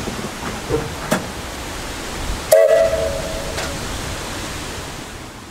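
Steam locomotive whistle, a 1927 Vulcan 0-4-0T tank engine's, giving one short blast of about a second halfway through, over a steady rushing noise that eases off near the end.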